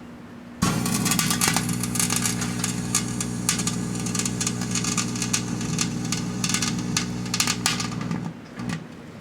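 Microwave oven switching on with a steady electrical hum, while fountain fireworks inside crackle and spark with many sharp pops. The hum and crackling start suddenly under a second in and cut off near the end.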